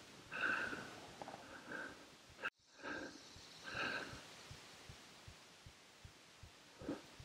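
A person's breathing close to the microphone, a few short breaths at a time, with the sound cutting out abruptly about two and a half seconds in before the breathing goes on.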